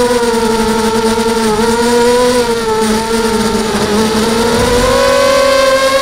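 Hexacopter's six Cobra 2204 2300kv brushless motors whining steadily in flight, the pitch sagging a little past the middle as the throttle eases, then climbing back.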